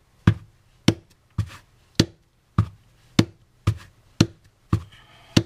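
A small rubber stamp on an acrylic block tapped down over and over onto card stock, inked with dye ink: about ten sharp taps at an even pace of nearly two a second.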